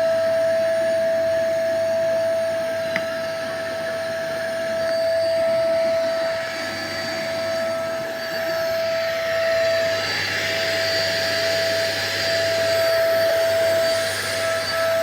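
Kärcher WD 3 P wet/dry vacuum cleaner running: a steady whine over loud rushing air, swelling and easing slightly in loudness.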